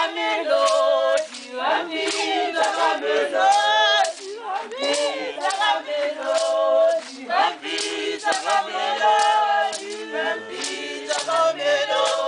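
Background music: a choir singing in several voices, with frequent sharp percussive strikes.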